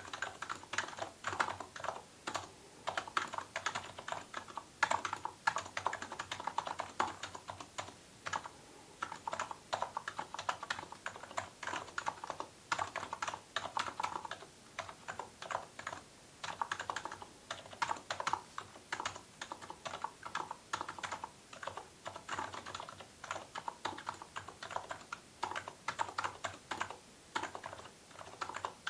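Typing on an electrostatic capacitive (Topre-style) keyboard: steady runs of quick keystrokes in bursts, with short pauses between them.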